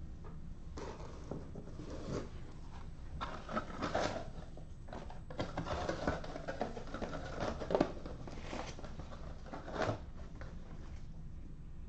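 Irregular rustling and handling noises over a low steady hum, with a sharper tap about eight seconds in.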